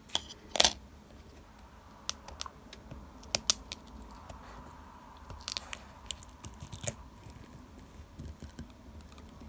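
Protective sticky tape being peeled off a laptop ribbon-cable connector, with short crackling rustles and scattered sharp clicks of tools and small plastic parts being handled.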